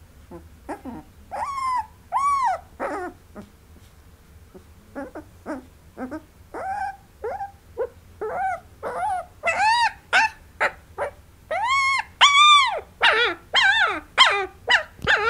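A 17-day-old Pakistani Bully puppy, ill with pneumonia, crying in a string of high whimpers and yelps that rise and fall in pitch, coming faster and louder in the second half, while a digital thermometer is held in its rectum.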